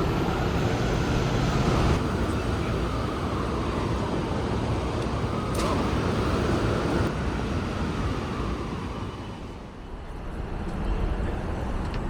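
City road traffic noise, a steady rush of passing vehicles that dips briefly and swells again near the end.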